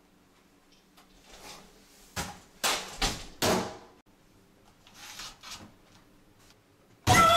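A few separate knocks and clunks, loudest between about two and three and a half seconds in, as an oven door and a portable radio on a steel worktop are handled. Near the end loud electronic dance music starts suddenly from the switched-on portable radio.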